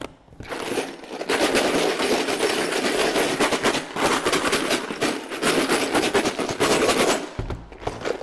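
Loose bolts and screws rattling hard inside a clear plastic storage box shaken vigorously, with two iPhones tumbling among them as a scratch test. The dense clatter starts about a second in and stops suddenly near the end.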